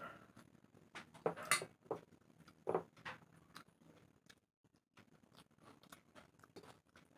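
Close-miked eating sounds of soaked rice (panta bhat) eaten by hand: wet chewing and lip smacks, with fingers squishing rice in a bowl of water. There are a few louder smacks in the first three seconds.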